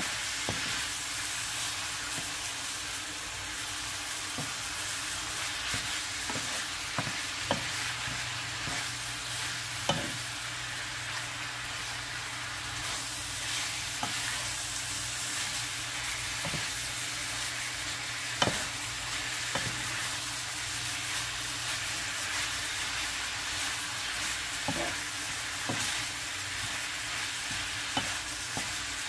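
Ground pork sizzling in a frying pan as a wooden spatula stirs and breaks it up, with scattered knocks and scrapes of the spatula against the pan.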